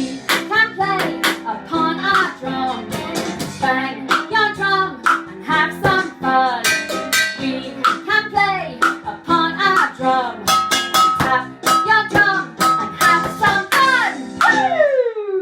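Children's song with strummed acoustic guitar and singing, punctuated by frequent sharp percussive hits. Near the end comes a long downward slide in pitch.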